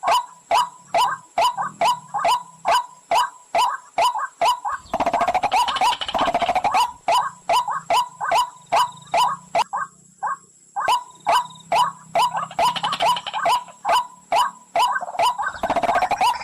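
Recorded call of the pullakodi water bird, played as a hunting lure: a sharp note repeated about three times a second, broken twice by a longer, harsher chattering run, with a faint steady high whine underneath.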